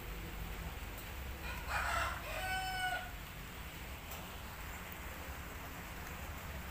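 A rooster crowing once, about a second and a half in, lasting about a second and a half: a rough opening that ends in a held, steady note.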